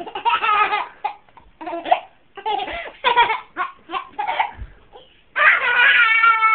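Toddler laughing in a string of short bursts, then one long high-pitched held vocal starting a little after five seconds in.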